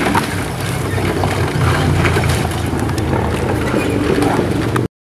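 Steady wind rumble on the microphone with boat and water noise from a moving boat, cutting off abruptly near the end.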